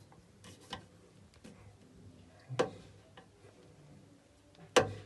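Scattered clicks and knocks of the plastic parts of a toilet cistern fill valve being handled as it is taken apart to pull out its diaphragm, with a louder knock about halfway and the loudest near the end.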